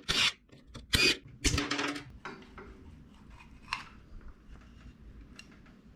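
Metal engine parts and hand tools being handled: a few short clanks and scrapes in the first two seconds, then a few light clicks.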